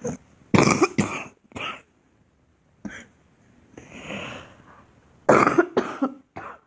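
A girl coughing in two fits of short, hard coughs, four or five in the first and three in the second, with a softer drawn-out breath between them about four seconds in.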